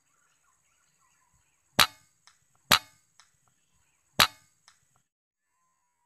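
Three sharp air-rifle shots, the second under a second after the first and the third about a second and a half later, each followed about half a second later by a much fainter click.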